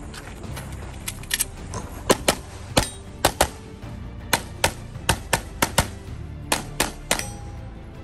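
Rapid 9mm pistol fire from a Canik SFx Rival: about eighteen shots, mostly in quick pairs, starting about a second in, over background music.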